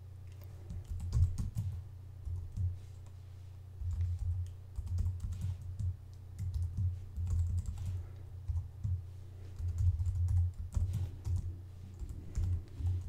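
Typing on a computer keyboard, keystrokes in quick bursts with short pauses between words, over a steady low hum.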